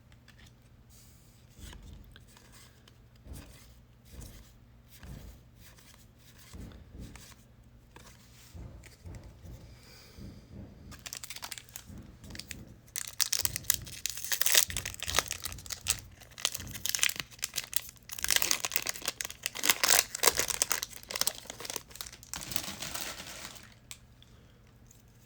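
Faint handling clicks, then about halfway through a trading card pack wrapper being torn open and crumpled in loud rustling spells that stop shortly before the end.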